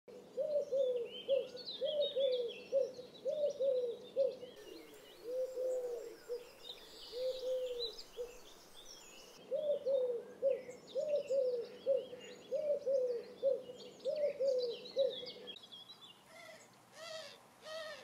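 Eurasian collared doves cooing, the persistent three-note coo repeated over and over, with other small birds chirping faintly and high above. Near the end it gives way to a few short nasal, trumpet-like calls of the collared dove.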